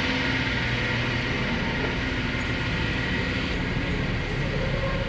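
Steady mechanical drone inside a passenger ferry: the hum of the ship's engines and ventilation, even in level, with a few faint steady tones in it.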